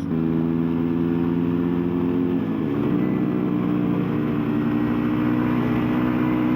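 Lexmoto Adrenaline 125cc single-cylinder motorcycle engine running at steady revs. Its pitch shifts slightly about two and a half seconds in, then holds steady.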